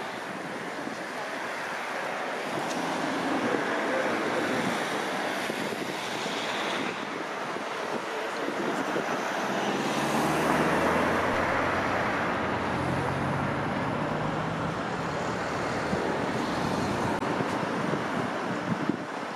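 Street traffic passing through a city junction: tyre and engine noise of cars and a box truck rising and falling as they go by, with the low drone of a vehicle engine running close by about halfway through.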